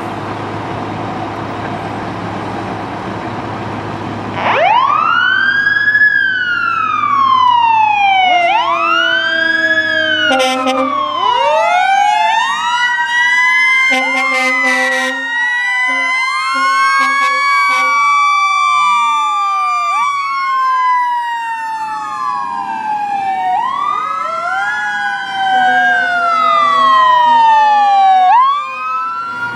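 Fire apparatus diesel engines rumble for the first few seconds. Then, about four seconds in, mechanical sirens start winding up and down and overlap for the rest of the time: a Federal Q siren on a 2020 E-One Cyclone tower ladder, wound up to its peak, and a Federal Signal Model 28 on a 2003 Ferrara pumper. Blasts from the ladder's air horns break in a few times, around ten and fifteen seconds in and again near the end.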